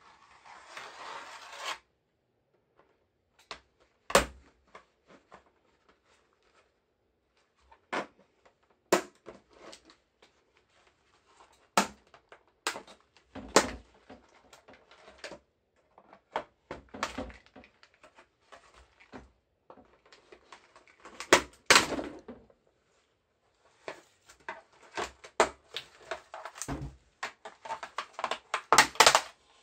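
Plastic computer keyboard being taken apart by gloved hands with a screwdriver: scattered sharp clicks and knocks of the plastic case and tool, with a brushing rustle at the start. Near the end the clicks come in a quick run as the case halves are pulled apart.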